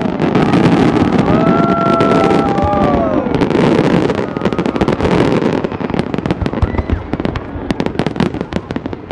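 Fireworks display going off: a dense, loud barrage of bursts and crackle for the first few seconds, thinning after about five seconds into rapid, separate crackling pops.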